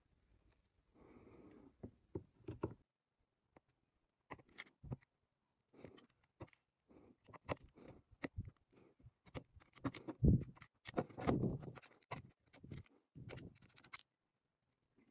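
Close handling noise of power-tool internals: irregular small clicks, taps and scrapes of plastic parts and wires, with a blade scraping at a wire. The busiest, loudest stretch, with a few heavier bumps, comes from about ten to twelve seconds in.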